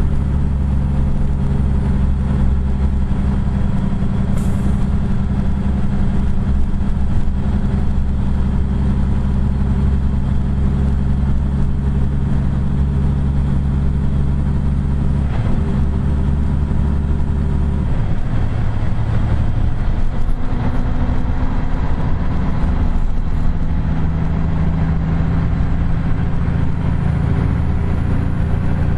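2009 Kenworth T800 truck's diesel engine pulling steadily on the highway, heard from inside the cab, with a steady low drone; the engine note changes about two-thirds of the way through.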